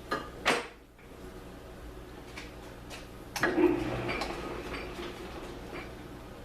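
Metallic clicks and a ringing clunk from the controls of a 1942 South Bend metal lathe being set for a threading scratch pass, over a steady low hum. Two sharp clicks come at the start, and the louder clunk about three and a half seconds in.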